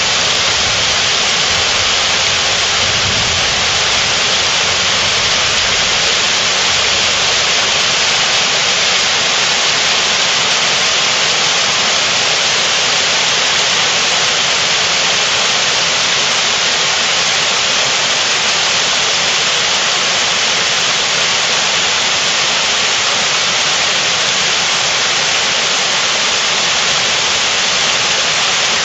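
Heavy thunderstorm rain pouring steadily onto stone steps, flagstones and plants, a loud even hiss. A low rumble of thunder dies away in the first few seconds.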